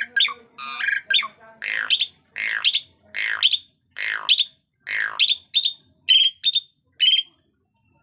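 Asian pied starling singing a loud run of harsh, downward-sweeping squawks, each followed by sharp high whistled notes, about two calls a second. Near the end the phrases turn shorter and higher before it stops.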